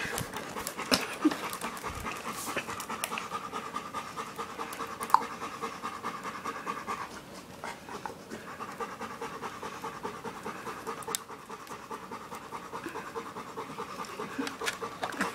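Dog panting fast and steadily, pausing briefly about halfway through, with a few sharp clicks and knocks.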